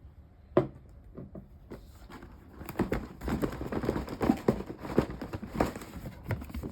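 Plastic packaging of a model kit being handled, crinkling and rustling with small clicks and knocks, after a single sharp knock about half a second in.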